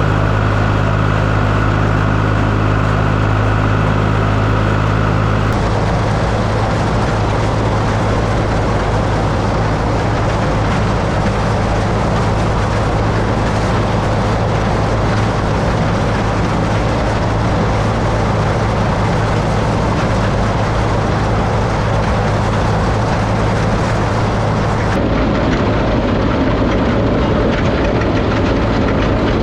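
John Deere 820 tractor running steadily under load while powering a haybine mowing hay. The sound changes abruptly twice, about five seconds in and near the end.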